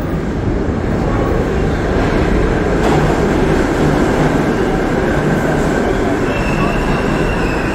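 Subway train running through a station, a loud steady rumble of wheels on rail. A high steady wheel squeal comes in near the end.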